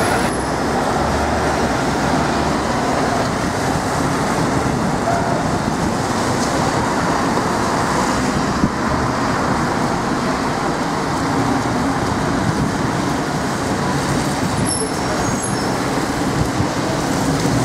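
Busy road traffic, with double-decker buses and cars driving past: engines running under a steady rush of tyre noise. A few brief high squeaks come about fifteen seconds in.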